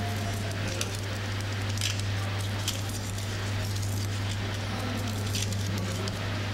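Steady low hum with hiss behind it, and a few faint crisp ticks and scrapes from a paring knife peeling the dry skin off an onion.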